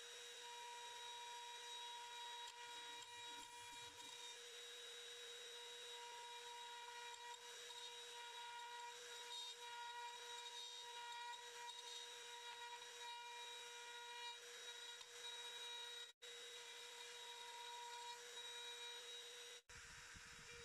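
Electric router spinning at high speed, a faint steady high-pitched whine, as its straight bit cuts a mortise into hard oak on a sliding mortising jig. The sound drops out briefly twice, about 16 seconds in and near the end.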